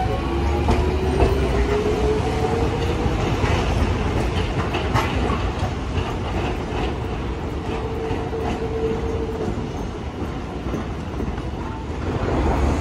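Hiroshima Electric Railway "Green Liner" articulated tram pulling away, its motor whine rising in pitch as it gathers speed. Its wheels click over the track now and then above a steady low rumble.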